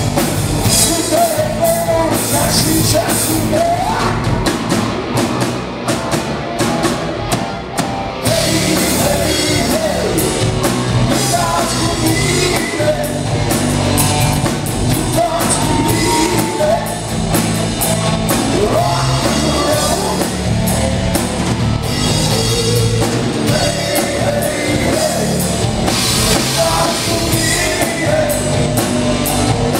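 Rock band playing live: distorted electric guitars over a drum kit, with a voice singing. The cymbals drop out for a few seconds, then the full band comes back in about eight seconds in.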